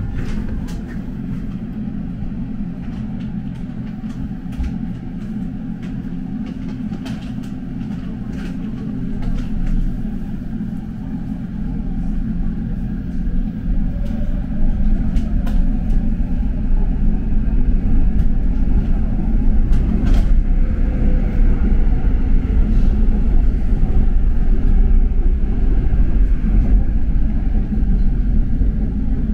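Seoul Metro Line 2 subway train heard from inside the car: a low rumble that grows louder from about a third of the way in as the train picks up speed, then runs steadily.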